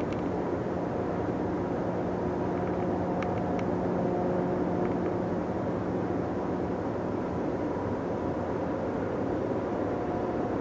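Steady drone of distant industrial machinery, a low rumbling hum with several held tones in it, plus a few faint clicks about three seconds in.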